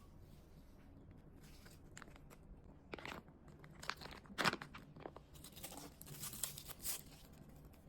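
Bites and chewing of crisp salt-pickled mamuang bao, a small sour green mango. A run of sharp crunches comes about midway, the loudest roughly halfway through.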